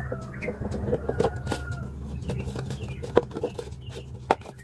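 Paper cutout being handled, with scattered light taps and rustles over a steady low hum, and a few bird calls in the background.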